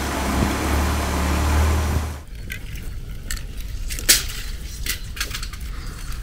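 Truck diesel engine running with a steady low drone, which stops suddenly about two seconds in. Then a few sharp clicks and knocks, the loudest around four seconds in.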